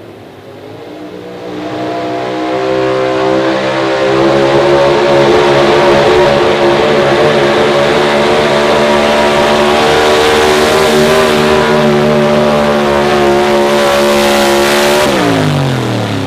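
Engine of a Pro Stock 4x4 Ford pickup pulling truck at full throttle under the load of the pulling sled. The revs climb over the first few seconds, hold high and steady, then drop sharply near the end as the throttle closes at the end of the pull.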